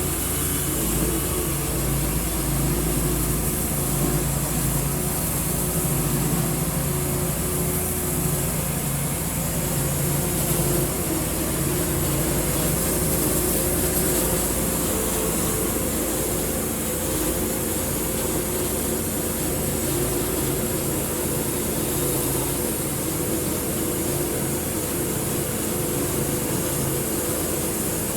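Sawmill running steadily through its first cut in a large white oak log: a constant motor hum under a continuous high hiss from the blade in the wood.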